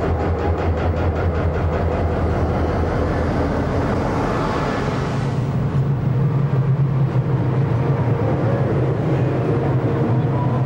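Diesel locomotive and stainless-steel passenger cars rolling slowly past at close range. A low engine hum carries a fast, even ticking over the first two seconds. A hiss comes about four seconds in, then a steadier, higher drone as the cars pass.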